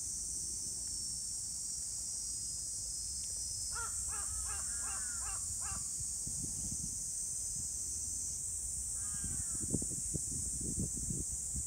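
A crow calling, a quick run of about seven short caws around four seconds in and two or three more about nine seconds in, over a steady high-pitched buzz, with low rustling in the second half.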